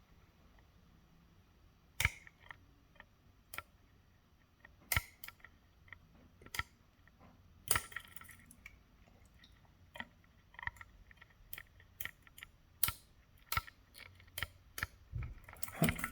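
Irregular small metallic clicks and taps of a lock pick working the sliders inside a Scorpion CX5 lock, with quiet gaps between, coming thicker and louder near the end as the lock is close to opening.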